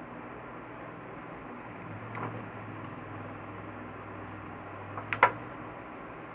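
Small handling clicks from wiring work over a steady faint hum: one light click about two seconds in, then a quick cluster of sharper clicks near the end.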